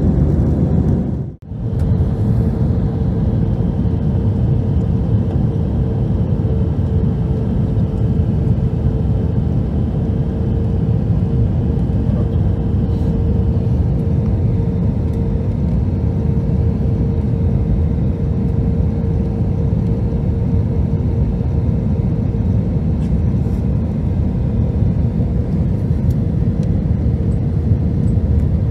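Cabin noise of an Airbus A321-231 on approach with flaps extended: a steady low roar of airflow and its IAE V2500 turbofans, with a steady mid-pitched hum running through it. The sound cuts out for an instant about a second and a half in.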